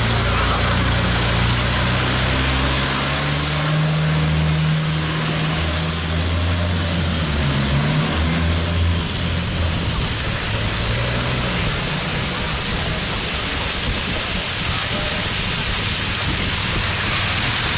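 Long-tail boat engine running under way, its low hum shifting in pitch through the first dozen seconds, over a steady rush of water and wind.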